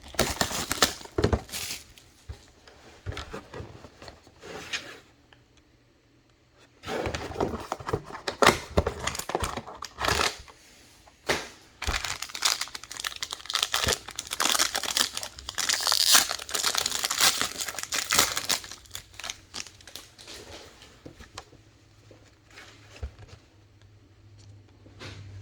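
Plastic wrapping on a box of trading cards being torn open and crinkled by hand, in irregular crackling bursts with a brief quiet pause about six seconds in.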